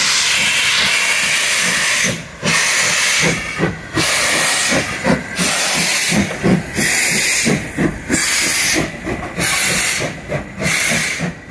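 Steam locomotive pulling away with its cylinder drain cocks open: a loud hiss of steam, continuous for about two seconds, then breaking into separate blasts with the exhaust beats as the engine gets moving.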